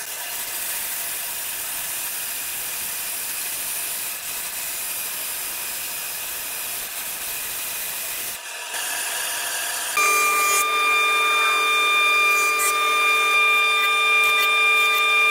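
Band saw cutting through a thick block of wood, a steady hiss. About ten seconds in, this gives way to a louder planer running with a steady high whine of several fixed tones.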